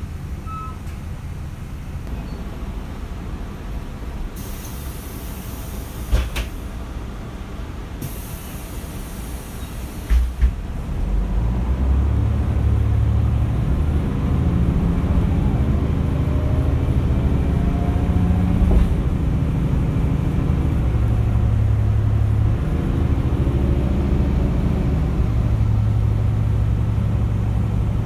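Interior of a Mercedes-Benz O405 N² city bus: its diesel engine idles with two bursts of air hissing, then from about 11 seconds in it pulls away and runs louder under load, with a rising whine and gear changes from the ZF automatic transmission, whose torque converter is damaged.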